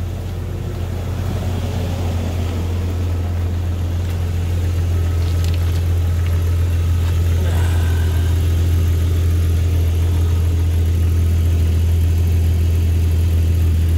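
Jeep ZJ Grand Cherokee's 4.0 inline-six idling steadily through its freshly welded exhaust pipes, catalytic converter and muffler, a deep even hum that grows a little louder toward the end. No exhaust leak can be heard.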